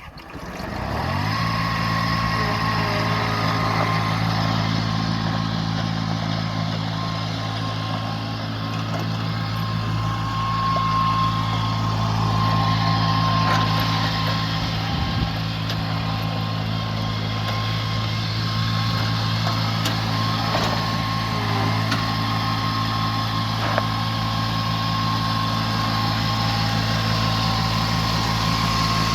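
Diesel engine of a Ransomes 723D riding mower coming up to speed in the first second or two, then running at a steady speed throughout.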